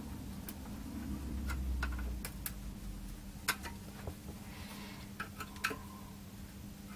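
Scattered small, sharp clicks and taps of a metal tool working the legs of a partly desoldered IC on a circuit board, testing whether the chip is free; the pins are still not fully cleared of solder.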